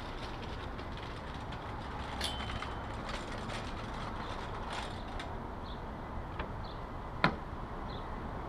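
Light rattles and clicks of a wheelchair being wheeled and handled at the back of an SUV, with one sharp clank about seven seconds in, as the rear liftgate is opened. Steady low background noise underneath.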